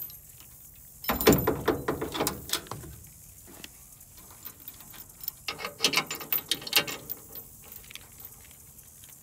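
A steel trailer coupler set onto a truck's hitch ball and the trailer's steel safety chains clinking and rattling against the hitch, in two bouts: one about a second in, another a little past the middle.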